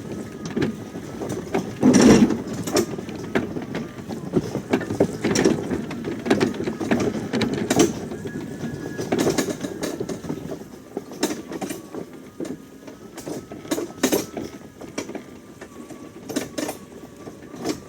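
Greenworks 60-volt battery electric riding mower driving over rough ground under a load of firewood: a thin steady electric motor whine under irregular rattles and knocks from the machine and its load, with a heavy jolt about two seconds in.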